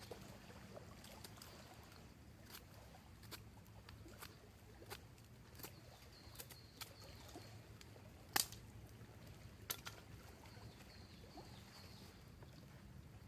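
Campfire crackling: irregular sharp pops and snaps over a faint steady rumble, with the loudest pop a little past the middle.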